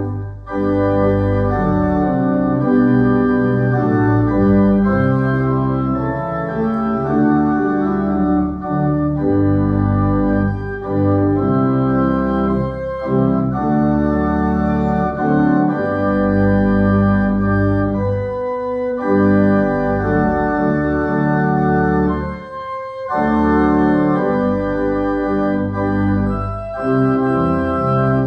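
Organ playing the postlude: held chords over deep bass notes, moving from chord to chord, with a few brief pauses between phrases.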